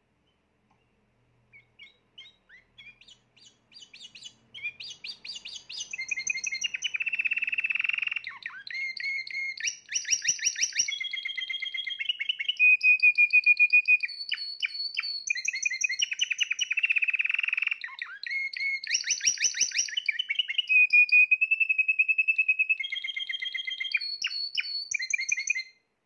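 Spanish Timbrado canary singing: a few scattered notes build into a long continuous song of rapid trills and rolls with two held whistled notes, ending abruptly near the end.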